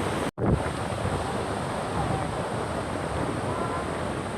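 A steady rushing noise, cut off briefly by a sudden gap about a third of a second in.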